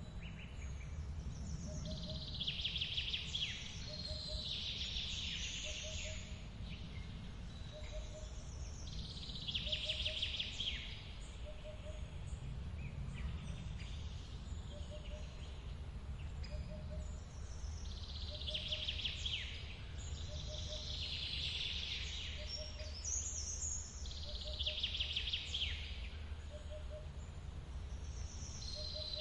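Forest ambience: songbirds sing bright, trilling high phrases every few seconds over a steady low rush of running water from a waterfall. Under them a soft low note repeats about every second and a half.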